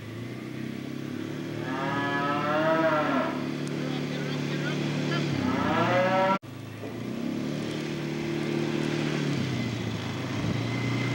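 A four-wheeler's engine running steadily, with a horse whinnying twice, long and wavering, about two and five and a half seconds in.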